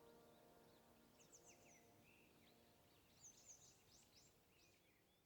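Near silence: the last chord of the outdoor loudspeaker chime dies away over the first two seconds. Faint small birds chirp in short runs about a second in and again around three to four seconds in.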